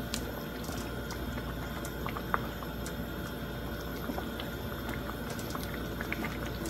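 Thick chicken masala sauce bubbling at a simmer in a wok, stirred with a wooden spatula, with small scattered pops and a single sharp tap about two seconds in.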